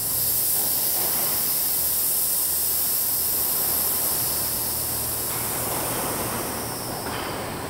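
Compressed oxygen venting through the purge valve of an oxygen cylinder's transfill regulator: a loud high hiss that starts suddenly and slowly fades. It is the residual pressure between the cylinder and its valve being bled off before the hoses are disconnected.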